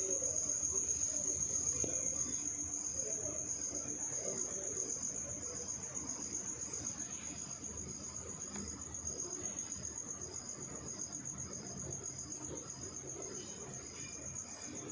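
A cricket's steady high trill, with a fainter chirp pulsing evenly beneath it, growing slowly fainter over faint room noise.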